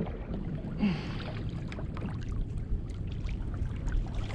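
Water lapping and trickling around a kayak hull, with small knocks and clicks and a brief louder rush of water about a second in.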